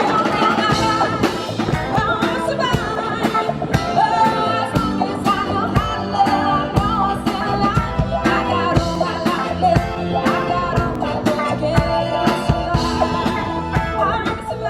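Rock-and-roll music with a singing voice, guitar and a steady drum beat.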